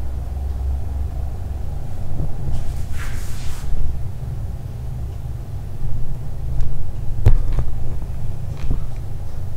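Handling noise from a handheld camera carried through rooms: a steady low rumble, with a short hiss about three seconds in and a sharp knock about seven seconds in.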